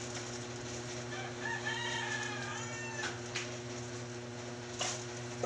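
A rooster crowing once, a single call about a second and a half long that rises and then falls, over a steady low hum, with a couple of light knocks afterwards.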